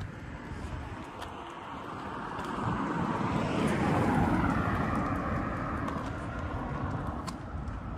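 A vehicle passing by: a rushing noise that builds to its loudest about four seconds in, drops in pitch as it goes past, then slowly fades.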